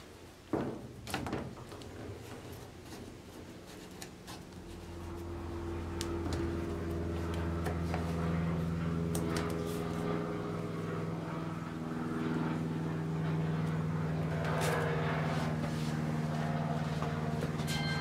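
Slow background music of sustained low chords, growing louder after the first few seconds. Near the start there are a few sharp clicks from the plastic hose coupling being handled on the metal ball valve.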